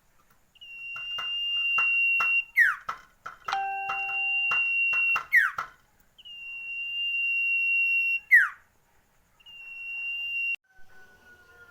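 Iora (cipow) singing: four long, steady high whistles, each about two seconds. The first three end in a quick falling slide, and quick clicking notes run under the first two.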